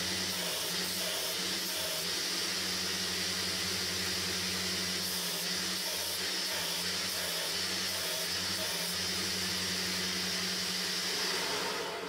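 Bench belt sander running steadily, a steel threaded rod held against the abrasive belt to grind its end to a point. The motor hum and belt hiss carry a faint pulsing of about two a second.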